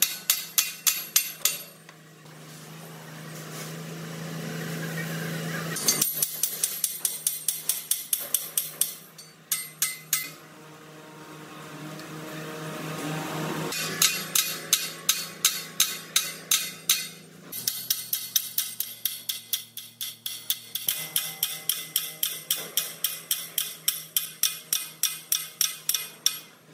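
Hammer striking a steel cutting tool held against the bore of a large steel bearing housing, chipping metal by hand: fast runs of sharp metallic blows, about four a second, each run lasting a few seconds. Between runs a steady low hum swells in loudness.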